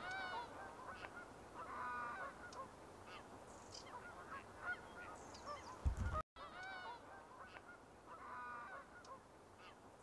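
A flock of geese honking, faint, with many short calls overlapping. About six seconds in there is a low thump, then the sound drops out for a moment and the calling starts again.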